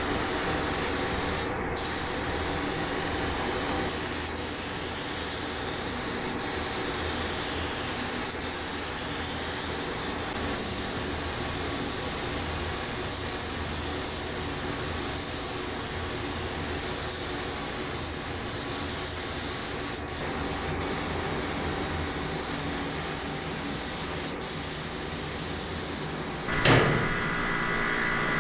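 Paint spray gun hissing steadily as the truck body is sprayed, with a few brief breaks, over a steady hum. There is a short louder sound near the end.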